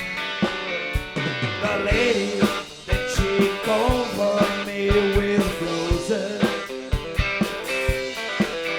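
A rock band playing a mid-tempo song: guitar over a steady drum beat.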